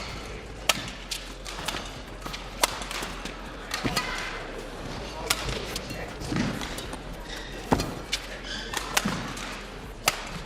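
Badminton rally: rackets striking the shuttlecock in sharp, single hits at uneven gaps of about half a second to two seconds.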